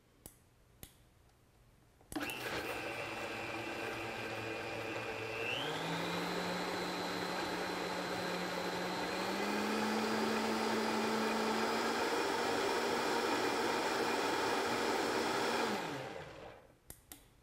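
Countertop blender starting about two seconds in and blending a liquid honey mustard dressing, its whine stepping up in pitch twice as the speed is raised, then winding down near the end as it is switched off.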